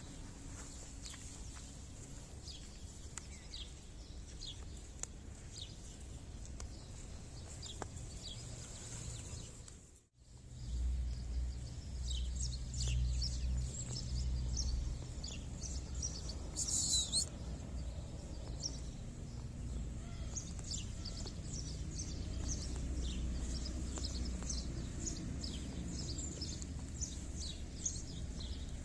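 Outdoor ambience of small birds chirping in many short, high calls, over a low rumble. The sound drops out briefly about ten seconds in, and one louder, shrill call stands out a little later.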